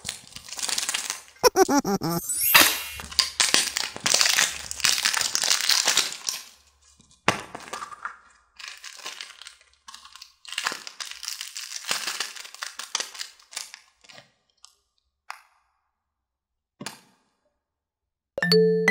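Plastic candy wrapper crinkling, crackling and tearing as a printed wrapped candy egg is unwrapped by hand; dense at first, then thinning to scattered rustles of a small clear plastic sachet and a few sharp clicks. A chiming xylophone-like jingle starts near the end.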